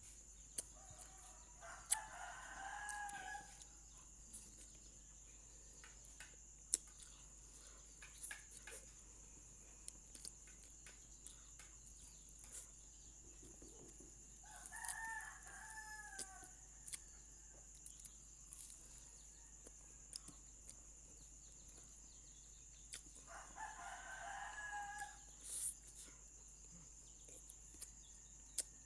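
A rooster crowing three times, faint, each crow lasting about a second and a half to two seconds: about two seconds in, about fifteen seconds in, and about twenty-four seconds in. Scattered short, sharp clicks are heard between the crows.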